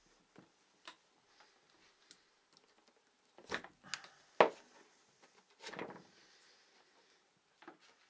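Handling sounds of a revolver and a leather holster: scattered light clicks, a few louder knocks about halfway through with one sharp knock the loudest, and a short scuffing rub near six seconds.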